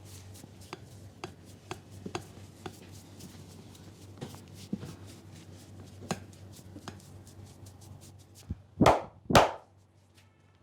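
Barber's hands striking the head during a massage: scattered light taps, then near the end a short tap and two loud slaps about half a second apart.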